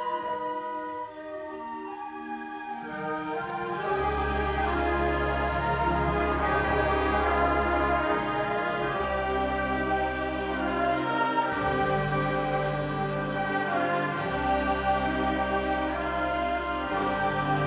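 School symphonic band playing a slow piece in sustained chords of woodwinds and brass. Long low notes come in about four seconds in, and the music grows fuller and louder.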